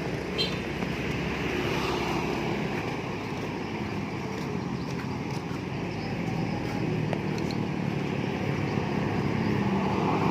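Motor vehicle engine running steadily while driving along a road, with steady road noise.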